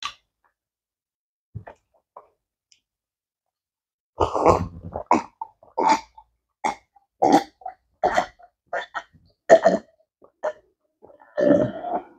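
A woman gulping water from a glass in close-up: a run of about a dozen short swallows, roughly two a second, starting about four seconds in, followed near the end by a longer breath out after drinking.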